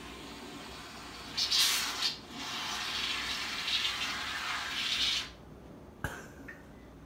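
Aerosol whipped-cream can spraying onto a person's hair in hissing spurts: a short loud burst about a second and a half in, then a longer spray for about three seconds. A single short knock follows about six seconds in.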